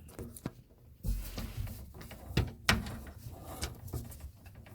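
Scattered knocks and clicks of hands handling things under a kitchen sink, among the faucet's water supply lines and fittings.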